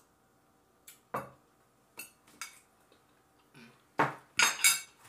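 Scattered clinks and knocks of a ceramic mug and dishes being handled, with a louder cluster of three knocks about four seconds in.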